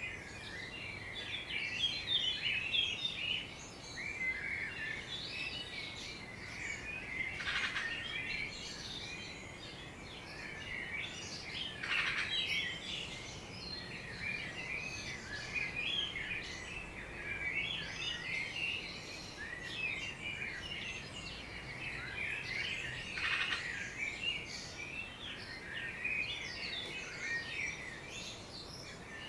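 A dawn chorus of garden birds: many birds chirping and singing at once in a dense, overlapping tangle of short high chirps and trills. A few louder calls sweep downward in pitch, about a third of the way in, near the middle and again later.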